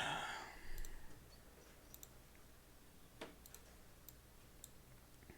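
A short breathy burst at the start, then faint scattered clicks every second or so.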